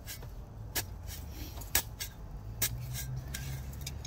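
A few sharp clicks, about one a second, over a steady low rumble.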